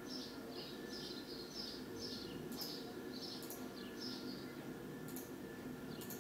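Faint bird chirping in the background: short falling chirps repeated about twice a second over a low steady hum, with a few faint clicks.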